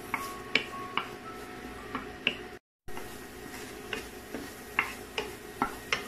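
Wooden spatula knocking and scraping against a non-stick frying pan while stirring minced garlic in oil: irregular sharp taps, some ringing briefly, over a steady background hum. The sound cuts out for a moment about halfway through.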